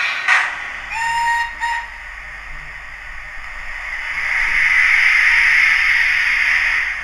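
Digital steam sounds from the small speaker of a Hornby TTS sound-fitted OO gauge Lord Nelson model locomotive: a short whistle about a second in, then a steam hiss that swells from about four seconds in and fades near the end.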